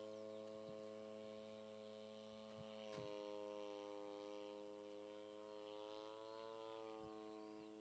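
Model Yak-54's opposed-twin two-stroke engine droning high overhead in flight. Its pitch dips with a faint click about three seconds in, climbs slowly later on, and drops back near the end.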